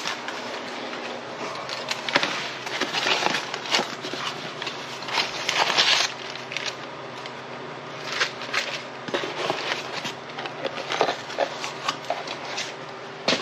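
Packaging being opened and a replacement ignition lock handled: irregular crackling and scraping noises.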